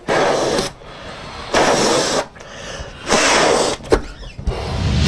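Forceful breaths blown into latex balloons to inflate them: four long, breathy puffs about a second and a half apart.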